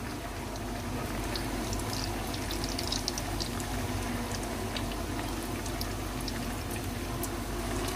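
Potato gola kababs deep-frying in hot oil: a steady sizzle and bubbling with scattered small crackles.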